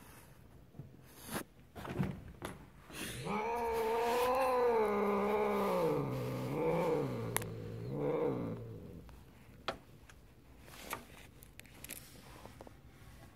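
Siamese cat giving one long, wavering yowl, starting about three seconds in and lasting some six seconds, its pitch dropping with a few wobbles toward the end. A few light knocks come before it.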